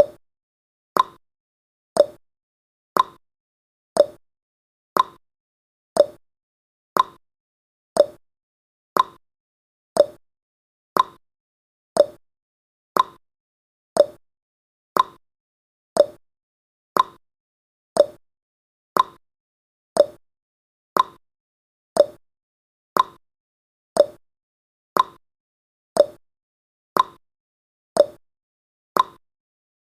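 Clock tick-tock sound effect of a countdown timer: one short tick every second, alternating between a higher and a lower pitch.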